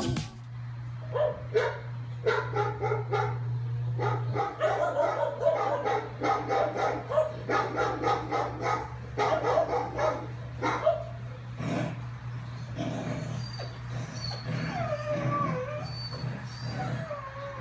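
Siberian husky vocalising: a quick run of short yips and whines for about ten seconds, then several longer, wavering howls.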